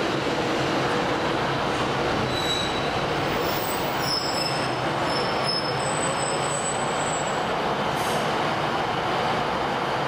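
Class 153 single-car diesel railcar drawing slowly into the platform and coming to a stand, its diesel engine running under a steady rumble. Thin high squeals come from the wheels and brakes as it slows, from about two and a half to seven and a half seconds in.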